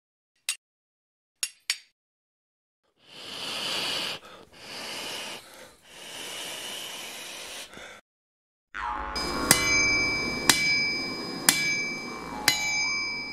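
Intro sound effects: a few sharp clicks, then a rushing hiss for about five seconds. After that come metallic strikes about once a second, each ringing on, over a low drone.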